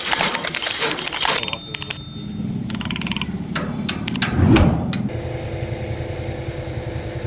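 Metal clinking and clattering, then a few sharp clicks. About five seconds in, a small engine starts and settles into a steady idle.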